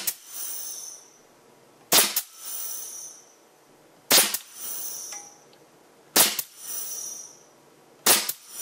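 Homemade .565-calibre big bore air rifle, a piston valve in a cast iron pipe tee run from 120 psi shop air, firing empty air blasts: five sharp cracks about two seconds apart, each followed by a short hiss.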